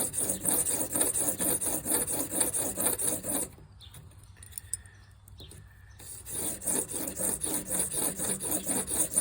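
Broadhead blade held in a Blade Sled sharpening jig, stroked rapidly back and forth on 400-grit abrasive: a fast, gritty rubbing in two spells of about three seconds with a pause between, the coarse-grit stage of sharpening.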